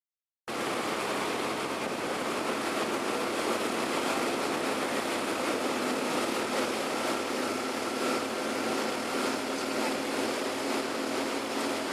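Steady rush of wind, water and motor noise aboard a fishing boat under way, starting abruptly about half a second in, with a faint steady whine.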